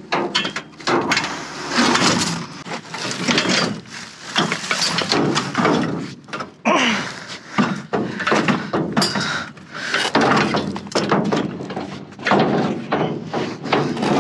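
Junk being shifted and handled while rummaging through a dumpster: repeated knocks, thuds and clatter of hard objects, with scraping and rustling in between.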